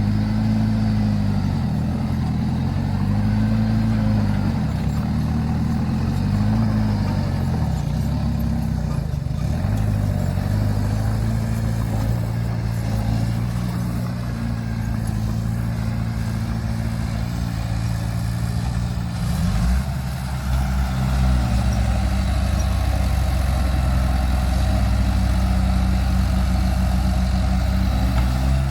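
Heavy diesel engine of a bulldozer or recovery truck revving up and down in repeated surges, then running steadily under load. Its note drops to a deeper steady drone about two-thirds of the way through.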